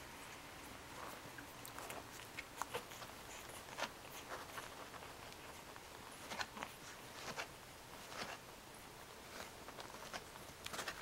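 Puppies suckling at their mother: quiet, irregular wet smacking and clicking sounds.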